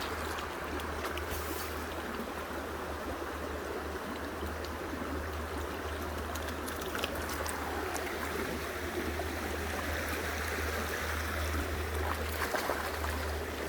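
River water flowing steadily, an even rushing babble, with a steady low rumble underneath.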